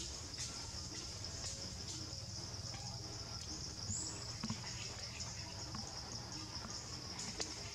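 Steady high-pitched drone of insects in the surrounding trees, over a low rumble, with a couple of faint short clicks.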